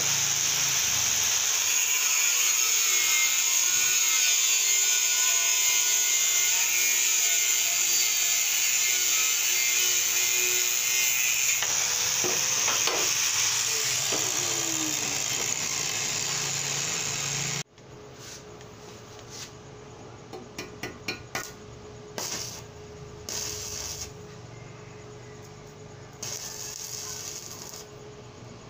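Angle grinder cutting steel angle bar: a steady, loud grinding whine for about the first seventeen seconds, then it cuts off suddenly. After that, quieter clinks and taps of the cut metal pieces being handled and set out.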